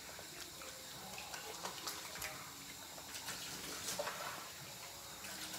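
Tap water running at a sink while hands are washed with soap, with a few small clicks and splashes.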